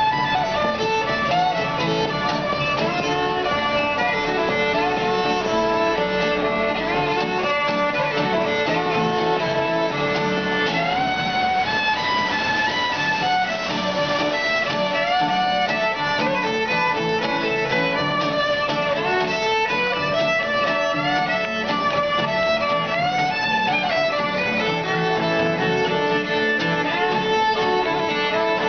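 Fiddle playing a melody with sliding notes over acoustic guitar accompaniment, a busking duo playing a tune.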